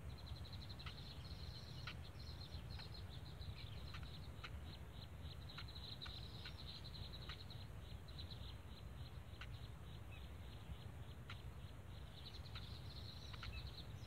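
Bittern nestlings begging with a rapid, high-pitched chattering chirp while the parent feeds them, broken by short single chips. A steady low rumble runs underneath.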